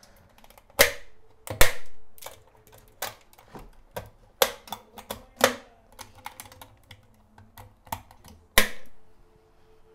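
Stainless steel fermenter lid being seated and its latch clamps snapped shut: a series of sharp metallic clicks and clacks, the loudest a little after the start and again near the end.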